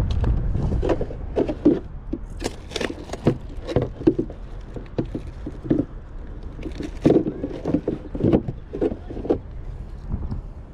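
Irregular close knocks, taps and rustles of handling noise as the camera and clothing move about, with low wind rumble at the start.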